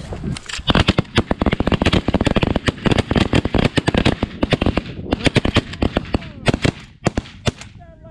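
A rapid volley of shotgun fire from several hunters shooting at a flock of snow geese: dozens of overlapping shots in quick succession for about seven seconds, thinning out near the end.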